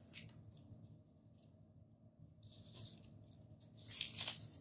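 Soft rustling and scratching of a paper sticker being peeled from its backing sheet and pressed onto a planner page, loudest about four seconds in.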